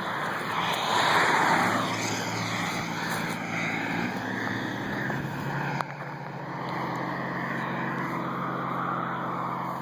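A car driving past on the road, its tyre and engine noise swelling about a second in and then easing off slowly. A single sharp click near the middle.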